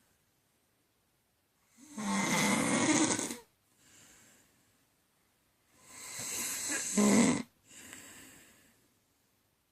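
A woman snoring in her sleep: two loud, rough snores about four seconds apart, each followed by a much softer breath.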